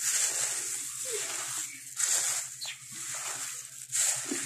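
Crisp puffed rice rustling and crunching as a hand tosses it through roasted chickpeas and chopped vegetables in a bowl. The swishes come in three surges about two seconds apart.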